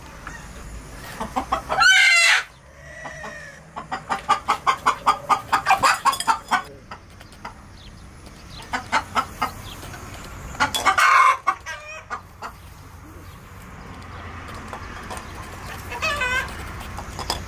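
A hen squawking loudly twice and clucking in quick runs of about four or five a second, with a fainter call near the end. She is disturbed on her nest as the eggs are taken from beneath her.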